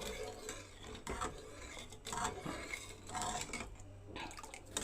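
A spoon stirring and scraping around a pan of thin, cooking gram-flour mixture, with scattered light clicks against the pan over a steady low hum.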